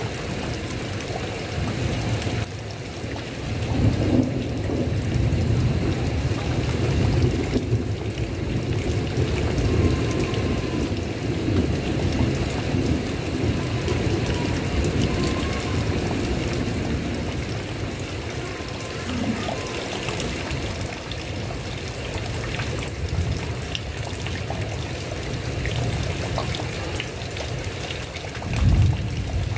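Steady heavy rain falling on a tile roof, with low thunder rumbling under it. The rumble swells about four to seven seconds in, and there is one short low boom near the end.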